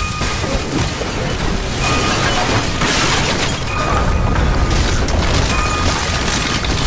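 Earthquake sound effects inside a collapsing apartment: a deep, continuous rumble with repeated crashes of falling plaster and debris, setting in suddenly at the start, over a music score.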